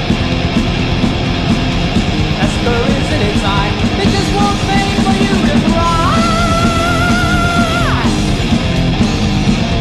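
Heavy metal music with distorted guitars, bass and drums at full band. A high lead line plays short notes, then holds one long note with vibrato that bends up into it about six seconds in and slides down away from it about two seconds later.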